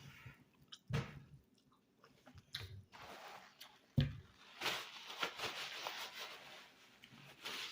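A person eating ramen noodles close to the microphone: chewing, with a few sharp knocks and a stretch of soft, wet mouth noise in the second half.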